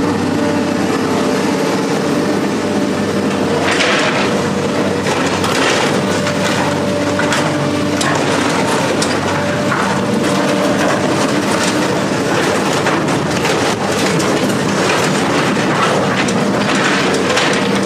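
A heavy machine's engine running steadily, with many irregular metallic clanks and crunches over it from about four seconds in.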